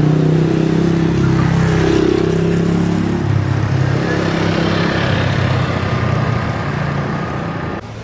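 Motor vehicle engine running close by and pulling away, its note stepping down twice as if through gear changes, about two and three seconds in. It cuts off suddenly near the end.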